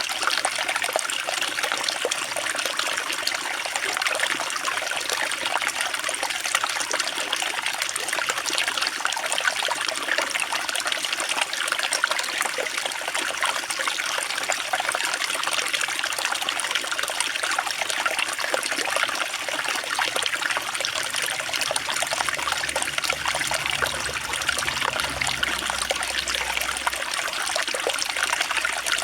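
Running water trickling steadily, an even splashing hiss with no breaks.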